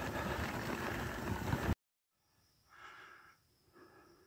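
Wind rushing on the microphone and tyre noise of a bicycle riding on a gravel road, cut off abruptly a little under two seconds in. After a short silence come a cyclist's heavy breaths, panting after climbing a hill.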